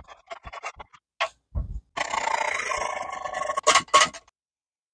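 A spoon stirring instant coffee in a cup: a quick run of short scraping clicks at about three a second. About two seconds in comes a longer, steadier noisy sound, and two sharp knocks follow near the end.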